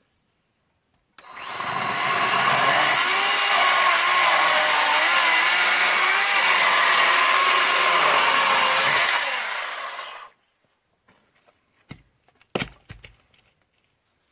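36-volt battery chainsaw cutting through a 100 mm spruce log. The electric motor's whine starts about a second in, its pitch sagging and wavering under load for about nine seconds, then stops. A couple of short knocks follow near the end.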